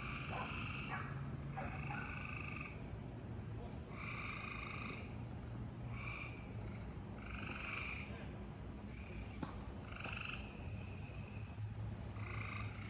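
A frog calling over and over: calls of about half a second to a second each, repeated roughly every two seconds, over a steady low hum.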